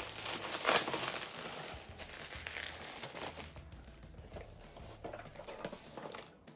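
Plastic mailer wrapping crinkling and rustling as it is pulled off a cardboard box, busiest in the first half, then dying down to occasional soft rustles.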